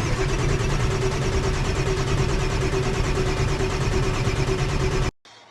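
1995 Ford F-350's 7.3 L Powerstroke diesel turning over on the starter without firing: a steady starter whine over fast, even pulses that stops abruptly near the end. The crank-no-start persists with a new IPR valve fitted.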